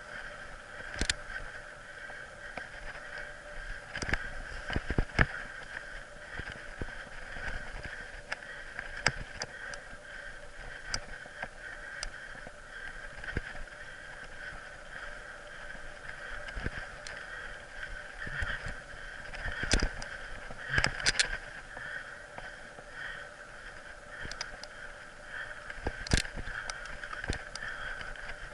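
Mountain bike ridden over a rough dirt trail, heard from a bike-mounted camera: irregular knocks and rattles as the bike hits bumps, over a steady high whine.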